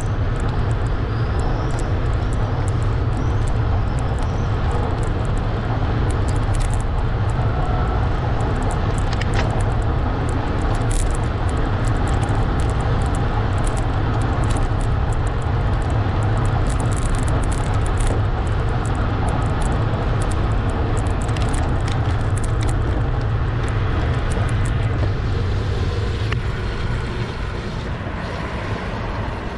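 Wind noise on the microphone of a handlebar-mounted camera on a moving bicycle, with tyre rumble on asphalt and small rattling clicks. It gets quieter over the last few seconds as the bike slows.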